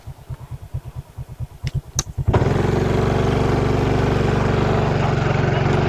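Motorcycle engine idling with an even low pulse that grows louder, then a little over two seconds in the sound jumps suddenly to a loud, steady engine note with a rushing noise over it.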